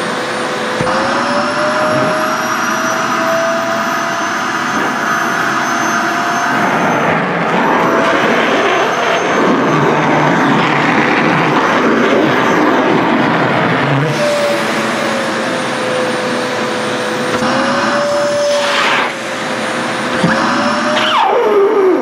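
Sharp EC-KP7F-A canister vacuum cleaner running with skirt fabric sucked into its bare hose end: a steady rush of air under a motor whine that rises and falls in pitch as the cloth plugs and frees the inlet, with a quick falling sweep near the end.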